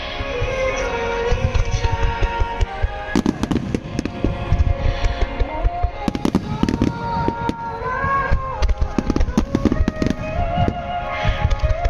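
Large aerial fireworks show: a dense barrage of shell bursts, with deep booms and sharp cracks coming several times a second. Underneath runs music with a slow, held melody.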